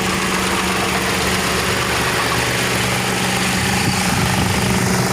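Suzuki K6A three-cylinder engine idling steadily, running at a steady level.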